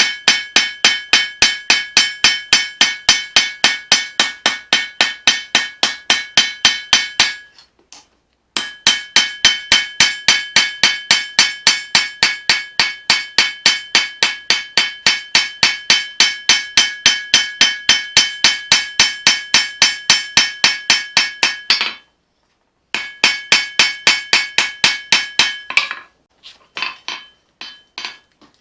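Forging hammer striking hot leaf-spring steel on an anvil, about three blows a second, each with a bright ring from the anvil. The hammering stops briefly twice, and near the end the blows turn lighter and uneven.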